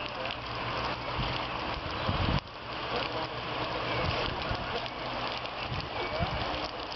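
A steady rushing hiss of outdoor noise, with irregular low thumps on the microphone and a brief drop in level about two and a half seconds in.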